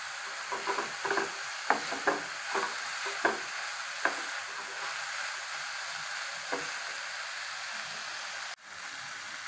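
Chopped vegetables sizzling as they fry in oil in a metal pan, stirred with a wooden spatula that knocks and scrapes against the pan several times in the first four seconds and once more later. The sound drops out for an instant near the end.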